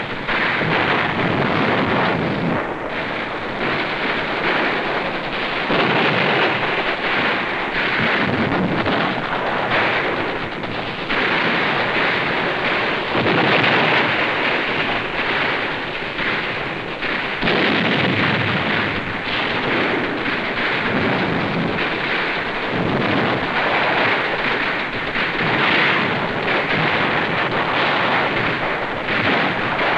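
A continuous din of battle sound: explosions and gunfire blending into one dense, noisy roar that swells and eases every few seconds.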